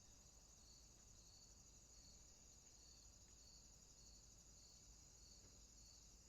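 Faint, steady high-pitched insect trilling, with a softer chirp repeating about every 0.7 seconds.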